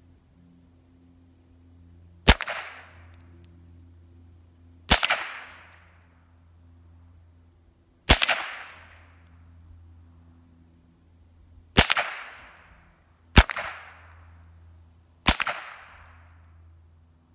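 Six gunshots fired one at a time, spaced a few seconds apart, each followed by a short echo that dies away.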